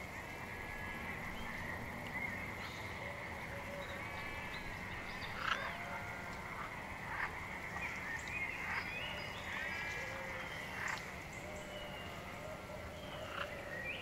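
Frogs croaking in a chorus: repeated short arching calls and a few sharp clicks over a steady high-pitched drone.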